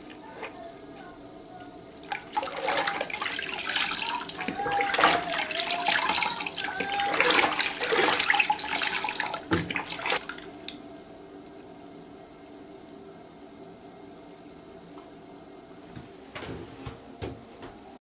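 Skating pads being sloshed and squeezed by hand in a plastic bucket of soapy water, splashing hard for about eight seconds, then settling. A couple of light knocks near the end.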